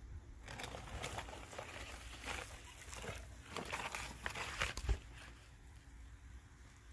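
Disposable aluminium foil roasting pan crinkling and scraping as it is drawn out of a clay oven, then set down with a knock about five seconds in.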